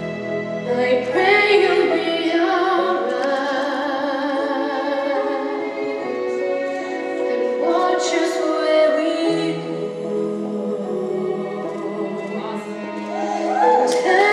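Music with a singing voice holding long, wavering notes over sustained chords.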